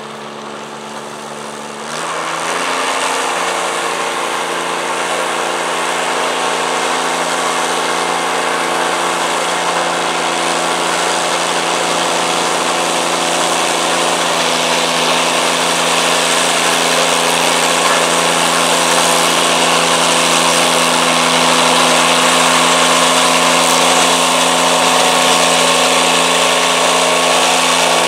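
Diesel modified garden pulling tractor's engine throttling up about two seconds in, then running hard at a steady speed as it pulls a weight-transfer sled, growing slowly louder.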